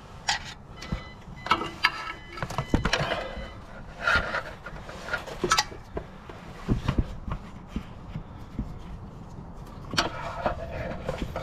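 Irregular clicks, knocks and clatter of hand tools being handled while a longer screwdriver is fetched, with a few brief metallic rings early on.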